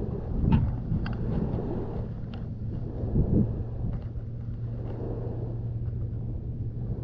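Wind buffeting the camera's microphone: a steady low rumble, with a few faint short high-pitched sounds in the first couple of seconds.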